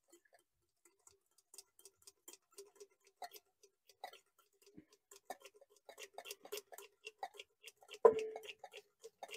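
Hand-pump squirt oil can being pumped again and again, squirting mystery oil into the engine's cylinders through the spark plug holes to soak and free the seized pistons: a run of faint clicks that come faster after about five seconds, with a louder click near the end.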